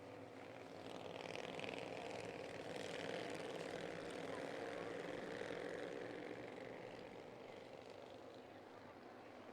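A pack of Bandolero race cars running at low caution pace, their small engines droning as they pass. The sound swells about a second in, holds for several seconds, then fades as the field moves on.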